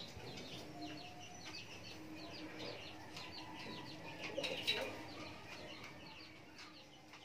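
Birds in a pigeon loft: a continuous run of short, high chirps, with a faint low cooing underneath and a brief louder flurry about four and a half seconds in.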